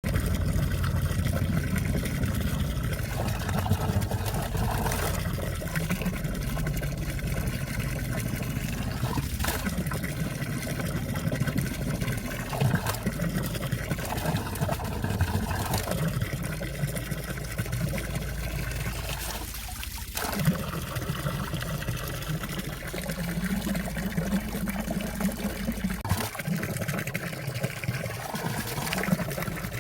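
Clear valley stream water trickling and babbling as it flows under and around ice: a steady rush with a low rumble and occasional small splashes.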